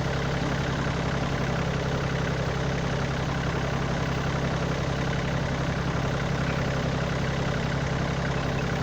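Kioti compact tractor's diesel engine idling steadily.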